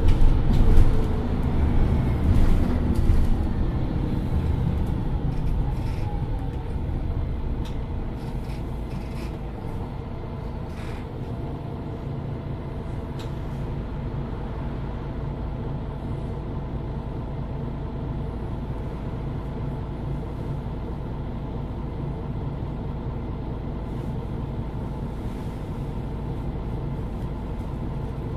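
Cabin sound of a standing MAN Lions City Euro 6 diesel city bus. It is louder at first, its pitch and level falling over the first several seconds, then the engine idles with a steady low drone. A few faint clicks come around the middle.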